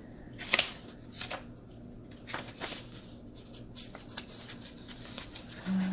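Pages of a small paper guide booklet being leafed through and handled: soft paper rustles with a few crisp flicks, spaced irregularly.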